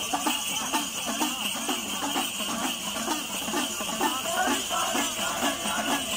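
A group of men's voices chanting an Ayyappan pattu devotional song, with bells jingling through it.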